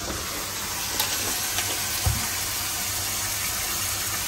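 Water streaming out of boiled soya chunks as they are squeezed by hand, a steady watery hiss, with a low thump about two seconds in.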